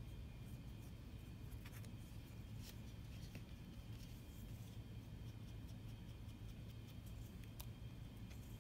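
Quiet room tone: a low steady hum with a few faint light clicks.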